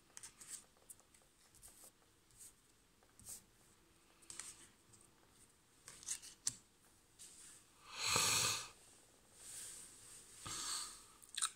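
Tarot cards being handled and laid out on a table: soft rustles, slides and light taps, with one louder rushing swish about eight seconds in.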